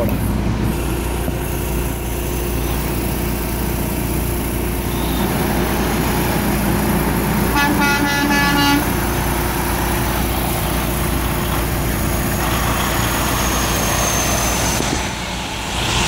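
A tractor-trailer's air horn sounds one blast of about a second, about halfway through, over the steady running and road noise of a passing semi truck.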